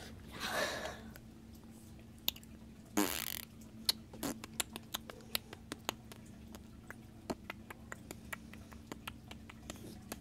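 Quiet close-up handling and mouth noises: a rustle as a hand brushes the camera near the start, a short hiss about three seconds in, then scattered small clicks and smacks at irregular intervals while a finger plays at the lips. A faint steady hum sits underneath.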